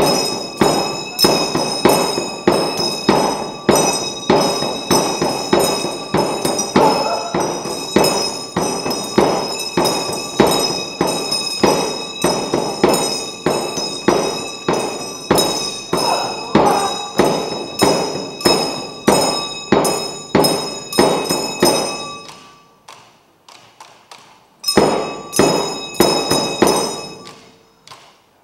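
Tibetan reba dance music: round hand-held reba drums struck in a steady beat of about two to three strokes a second, with bells ringing over them. The drumming breaks off about three-quarters of the way through, drops to a faint trickle for about two seconds, then starts again and fades near the end.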